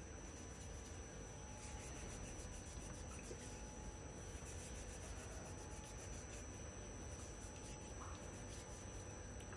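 Molded diatomaceous earth pieces being sanded by hand with sandpaper: a soft, continuous run of quick rubbing and scraping strokes.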